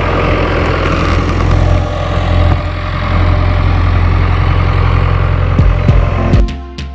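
Farm tractor engine running steadily, a loud low rumble that cuts off near the end.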